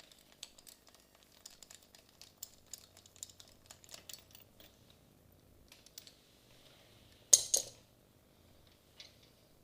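Irregular light clicks of a socket wrench with an 18 mm spark plug socket working the spark plugs out of a BMW K-bike's cylinder head, with a louder short clatter about seven seconds in.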